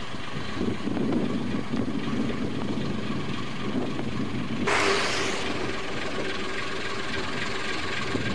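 Narrow-gauge diesel locomotive running steadily as it hauls a train of wagons, with a short, sharp hiss about halfway through.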